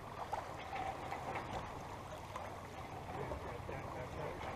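Steady rush of water along the hull of a sailboat under sail.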